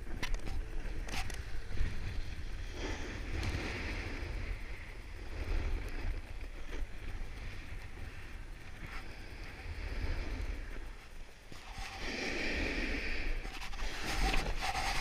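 Wind buffeting an action camera's microphone during a ride down a snowy slope, with the hiss of snow under the sliding rider. The snow hiss swells twice, about three seconds in and again near the end.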